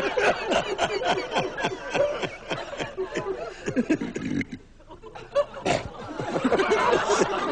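Two men snickering and giggling in fits of stifled, barely held-back laughter, with a brief pause just past halfway before the laughter picks up again.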